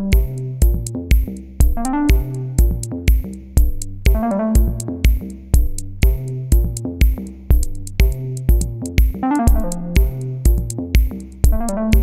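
Electronic background music: a steady drum-machine beat, about two kicks a second with sharp clicks between them, under synthesizer notes.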